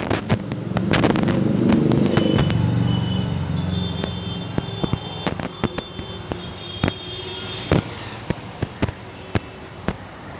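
Fireworks and firecrackers going off in irregular sharp bangs and cracks, some loud and close, others faint. A low rumble swells about a second in and fades away over the next few seconds.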